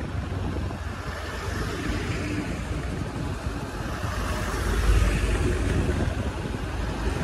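Steady road and wind rush heard from a moving motorcycle, with the low rumble of heavy trucks passing close in the other direction; it swells briefly about five seconds in as a truck goes by.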